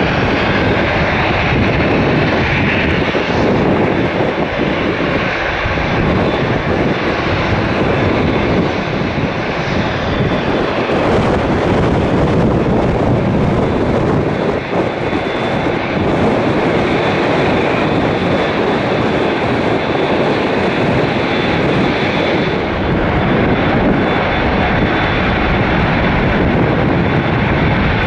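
Jet engines of a Boeing 787-8 airliner, running loud and steady with a faint high whine on top, as heard at a departing airliner.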